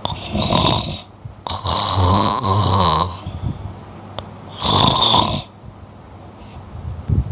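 Snoring sound effect: a person snoring, three long snores with quieter breathing between.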